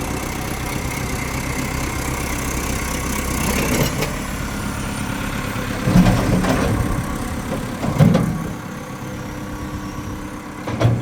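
Diesel engine of a 2009 Caterpillar 416E backhoe loader running steadily; its low rumble falls away about four seconds in. Three heavy thumps follow in the second half.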